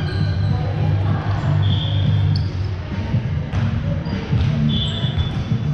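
Echoing gym sounds: a volleyball bouncing on the hardwood floor a couple of times, short sneaker squeaks, and a low murmur of players' voices.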